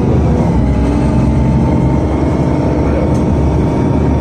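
Inside the cabin of a moving Volgabus-5270.G4 city bus: its Weichai WP7NG280E51 compressed-natural-gas engine runs under way with road noise, a steady low hum.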